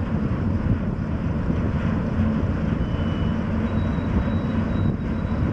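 Steady low rumble of the pushing tug's diesel engine driving a large barge at slow speed.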